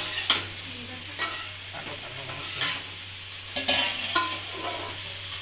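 Metal spatula scraping and knocking against a black iron kadai as drumstick stems and potatoes are stirred, over a steady sizzle of frying. The strokes come at irregular intervals, with a quick cluster near the end.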